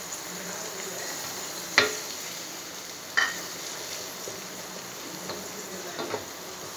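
Masala and freshly added yogurt sizzling gently in a steel pan while being stirred with a wooden spatula, with three sharp clacks, the two loudest about two and three seconds in.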